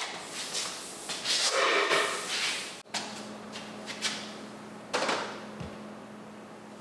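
Handling sounds of a sisal cat scratching post being set down and shifted on the floor, with a louder scraping slide in the middle of the first half. About five seconds in comes a single sharp knock as a white plastic folding step stool is set down.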